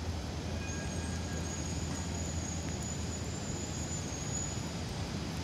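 Steady city street noise: distant traffic over wet roads with a low hum underneath. A faint, high-pitched squeal comes in about a second in and fades out about a second before the end.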